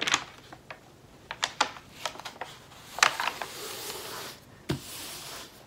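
Paper and canvas being handled on a table: a stiff diamond painting canvas and its cover sheet rustle and slide as they are flipped over, with scattered light taps and clicks.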